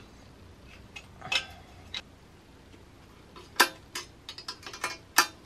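Sharp metallic clicks and clinks of a wrench working the nuts on the turbo-to-exhaust-manifold flange, irregular and scattered, with a cluster of them in the second half.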